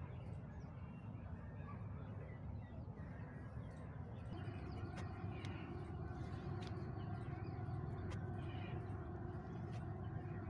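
Outdoor birdsong: many short bird calls over a steady low rumble, with a few sharp clicks in the second half.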